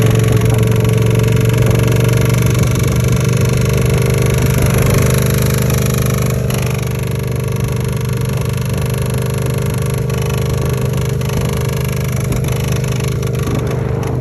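Yamaha MT-07's 689 cc parallel-twin engine running steadily as the bike is ridden. The engine had run out of oil on the highway and is said to need a rebuild.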